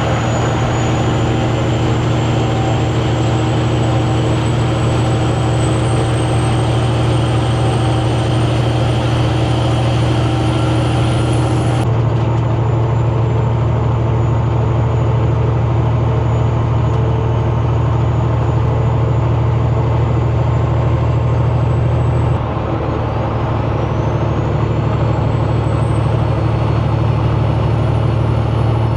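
Diesel semi-truck engine running steadily under power through its 8-inch exhaust stacks, with a high turbo whistle over it that climbs slowly in pitch. About twelve seconds in, the whistle drops suddenly to a lower pitch. Just past twenty seconds the engine dips briefly, and then the whistle sweeps up in pitch again.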